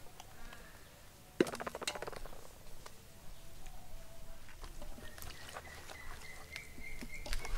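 Raw chicken drumsticks being handled and dropped into an aluminium pot, with a sharp metallic clink about a second and a half in and scattered small knocks and clicks against the pot and steel plate after it.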